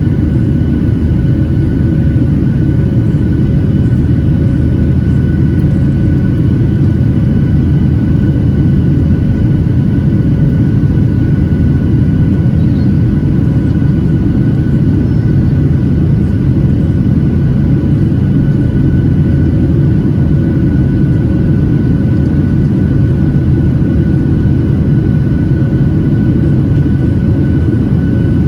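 Cabin noise of a Boeing 737-800 heard from a window seat: the CFM56-7B turbofan engines running steadily, a deep rumble with several constant whining tones above it, unchanging in level.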